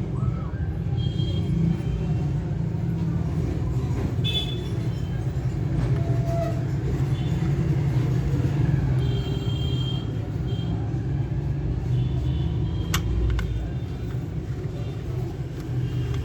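Steady low rumbling background noise, like road traffic, with a sharp click about thirteen seconds in.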